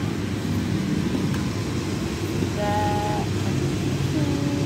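Steady rumble of passing road traffic, with two short steady tones about halfway through and another near the end.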